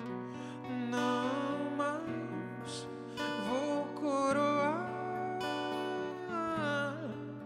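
Acoustic guitar picked and strummed while a man sings a slow melody over it.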